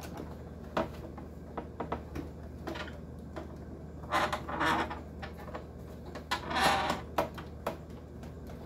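Plastic housing parts of a dehumidifier being handled during disassembly: scattered light clicks and knocks, with two longer scraping rustles about four seconds in and again about six and a half seconds in.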